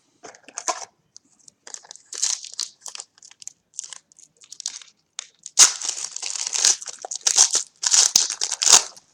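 Trading card pack wrapper crinkling as it is handled, torn open and crumpled, with scattered crackles at first that grow louder and denser about halfway through.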